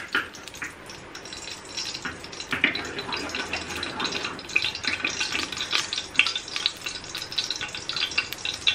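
Ghee sizzling and crackling in a hot pressure cooker as spoonfuls are dropped in, with the metal spoon scraping and tapping as it scoops ghee from the jar.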